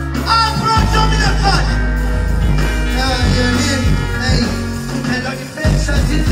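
Live dancehall music through stage PA speakers: a heavy bass line and drums under a male vocalist on the microphone. The bass drops out briefly about five seconds in and comes back in loud just before the end.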